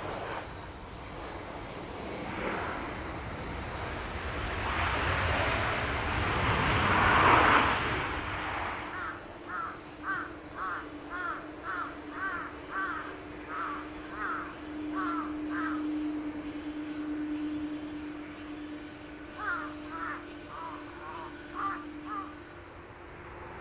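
A broad rushing noise swells to its loudest about seven seconds in and then fades. A crow then caws in a quick run of about a dozen calls, roughly two a second, and gives a few more near the end, over a steady low hum.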